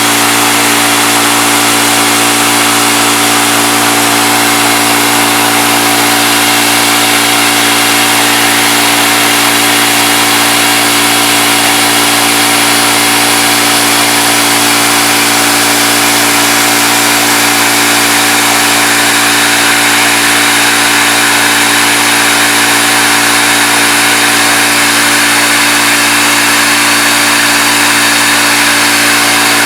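CNC milling machine running its spindle and cutting an aluminum part: a loud, steady machine whine with several fixed tones over a hiss of cutting noise.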